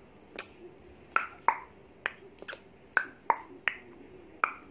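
A child making a string of sharp mouth clicks, about ten at an uneven pace, each with a short hollow ring that drops in pitch.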